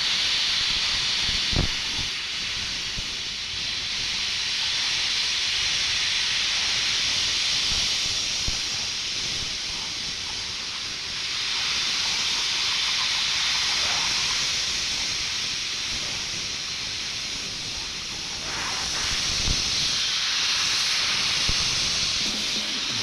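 Plasma cutter torch hissing steadily as it cuts through steel plate, the hiss swelling and easing a little as the cut goes on, with a few faint clicks.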